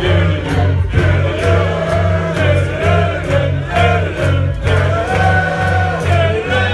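A man singing into a microphone through a PA over loud backing music with a heavy bass beat, about two beats a second.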